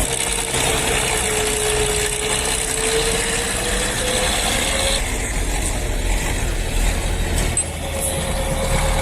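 Heavy vehicle engine running steadily, with a thin whine that dips and then rises slightly in pitch. The sound changes abruptly about five seconds in.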